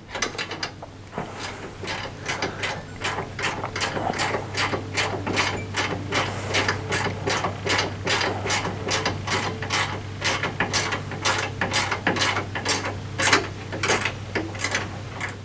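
Ratchet wrench clicking in a fast run of repeated strokes as nylon-insert lock nuts are snugged onto the bolts of a wall bed's stabilizing-rod pivots.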